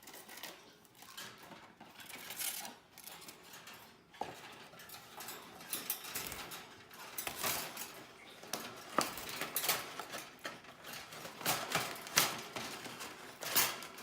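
Rustling and light metallic clinks and rattles from handling a wire birdcage while a budgie is coaxed into it, irregular and busier in the second half.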